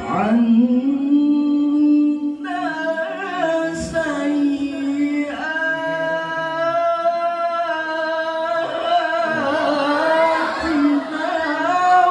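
Solo male voice reciting the Quran in melodic tilawah style into a microphone, holding long ornamented notes in several drawn-out phrases.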